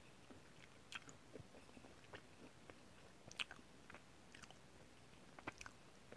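Faint chewing of a soft chocolate brownie, with small sharp mouth clicks scattered through it.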